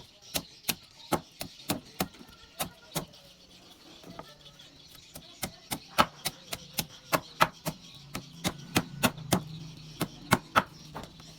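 Knife chopping on a cutting board in quick, regular strokes, about three a second.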